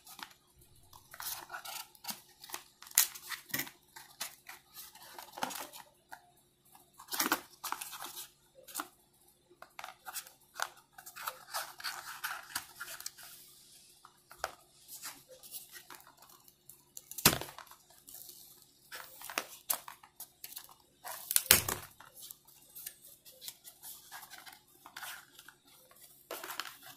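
Hands handling wireless earphone packaging: irregular clicks, scrapes and rustles as the earbuds and cable are pulled out of the cardboard tray, with a few sharper knocks.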